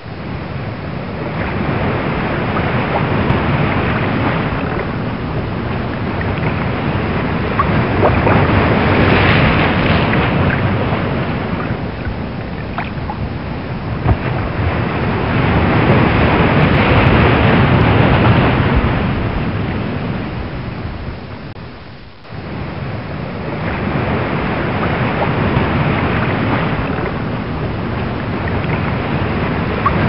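Rough open sea: waves rolling and breaking, with wind, the noise swelling and easing every several seconds. It drops away sharply for a moment about twenty-two seconds in.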